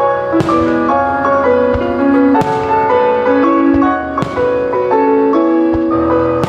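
Piano-led music, with a sharp accent about every two seconds.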